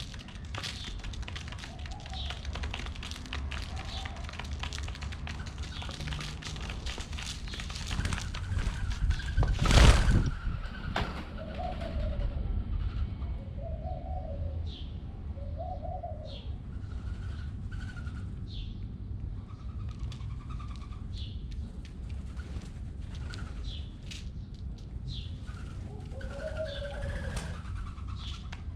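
Pigeons cooing in short, repeated phrases, with brief high chirps from small birds. A loud burst of noise comes about ten seconds in.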